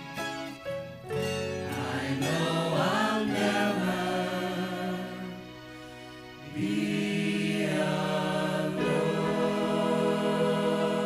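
Live gospel music: held chords with singing voices. It drops softer about halfway through, then a full held chord comes back in.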